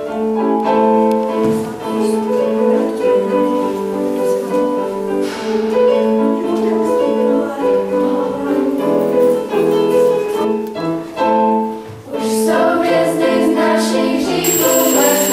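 Girls' choir singing a slow melody in held notes. The singing dips briefly about twelve seconds in and goes on, and a steady high whine comes in near the end.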